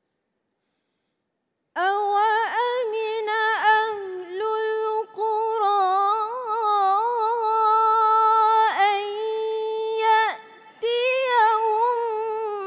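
A woman's unaccompanied Quran recitation in the melodic tilawah style. After almost two seconds of silence she starts a long, high-pitched phrase, holding drawn-out notes and ornamenting them with quick turns, with short breaks for breath.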